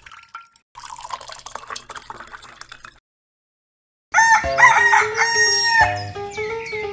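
A brief trickle of water, a second of silence, then a loud rooster crow.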